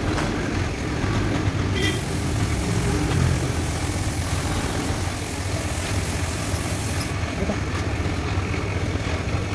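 Air compressor running with a steady low drone, and a spray paint gun hissing from about two seconds in until about seven seconds in.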